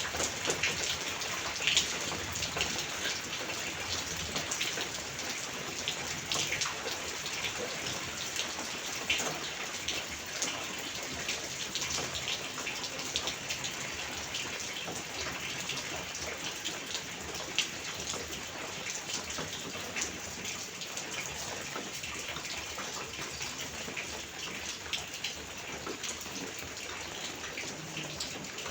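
Steady monsoon rain, with many separate drops clicking sharply against the nearby surfaces over an even hiss.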